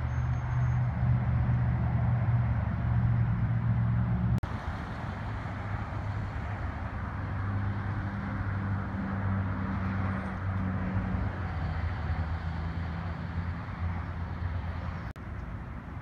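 Steady low hum of vehicle engines with road traffic noise, the pitch of the hum shifting about four seconds in, with a sharp click there and another near the end.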